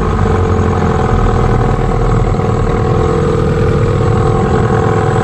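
Small boat's outboard motor running at a steady speed, a loud even hum.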